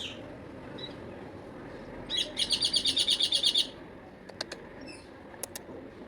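Parrot chirping: a quick run of about a dozen high chirps in a second and a half, about two seconds in, followed by a few sharp clicks.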